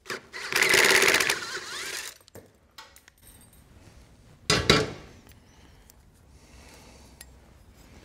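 A hand screwdriver turning a screw out of a motorcycle's saddlebag bracket: a rapid grinding rasp lasting about a second and a half. About four and a half seconds in comes a short, sharp clatter.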